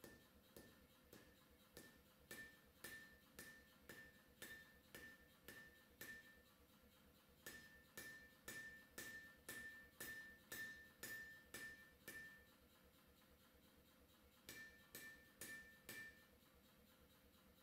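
Hand hammer blows on a red-hot steel deba knife blank lying on an anvil, about two a second, each blow with a short metallic ring. The blows come in three runs with short pauses between them.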